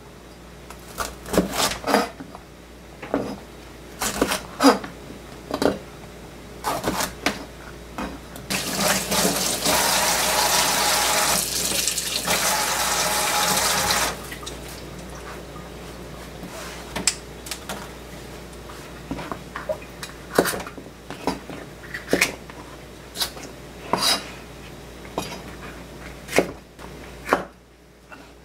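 Kitchenware clinking and knocking now and then, with water running from a tap for about five seconds in the middle, then shut off suddenly.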